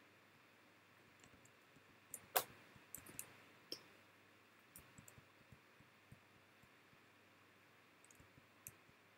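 Scattered faint clicks and taps from computer input while drawing digital animation frames, over near-silent room tone. The loudest click comes about two seconds in, with clusters of lighter ones after it and again near the end.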